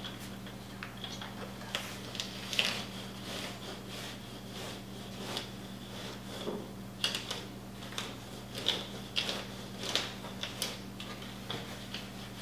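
Scattered light clicks and taps of hands working pasta dough on a tabletop, over a steady low electrical hum.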